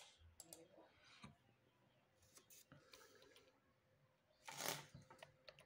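Near silence with faint, scattered laptop keyboard clicks, and a brief louder hiss of noise about three-quarters of the way through.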